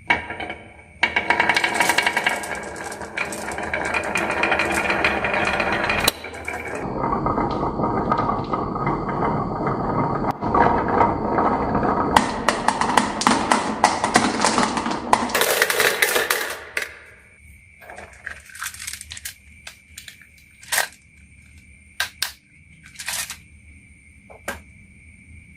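Marbles rolling and rattling down a HABA wooden marble run in a long, dense clatter, then a scatter of separate clicks and knocks as they drop and hit one another.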